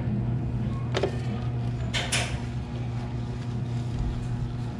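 Metal clicks from work at a scooter's rear gear case during a gear oil drain: one sharp click about a second in and two close together about two seconds in. A steady low hum runs underneath.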